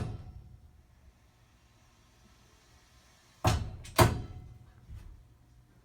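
Household water pipes banging twice in quick succession, about half a second apart, then a fainter third knock a second later. It is the banging that comes whenever the hot water starts to run.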